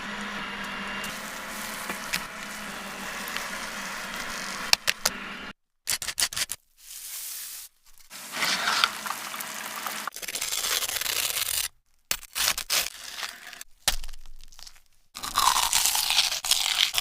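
Cooking and eating sounds of a deep-fried bacon-and-egg-wrapped hot dog, cut together. A steady hiss runs for about five seconds, then short clips of scraping and crunching follow, broken by abrupt silences, with crunching near the end.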